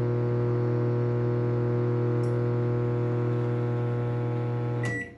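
Panasonic NN-ST652W microwave oven running with a loud, steady electrical hum-buzz while not heating, a horrible noise that the technician takes for a part in short circuit. Near the end it cuts off with a click and a short beep.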